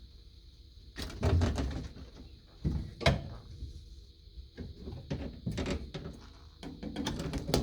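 Handling of flexible dust-extractor hoses and their magnetic plastic fittings: a series of clunks and sharp clacks as the fittings are knocked together and snapped on, with a heavier thump and rustle about a second in.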